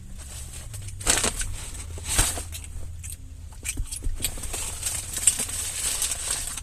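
Eating and food-wrapper handling sounds in a car: crinkly rustling and crackling in short bursts, busier in the second half, over a low steady hum.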